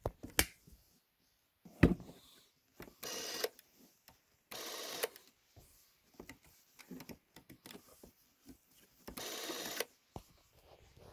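Braun Nizo 801 macro Super 8 camera's motor running in three short bursts of about half a second each. Between the bursts come clicks and knocks of the camera being handled in its foam case, the sharpest knock about two seconds in.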